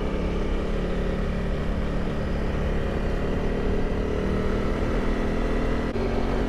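Honda CRF300 Rally's single-cylinder engine running at low road speed as the motorcycle rolls through town streets, a steady engine note with a low rumble. The note shifts slightly about four seconds in, and there is a short click near the end.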